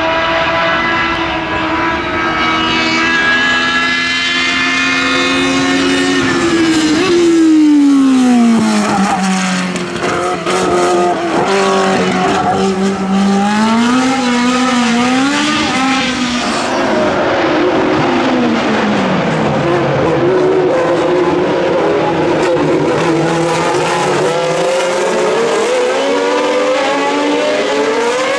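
Historic Formula 1 race car engines running at high revs past the track. The pitch falls steeply twice as the cars brake and change down, and climbs again as they accelerate away.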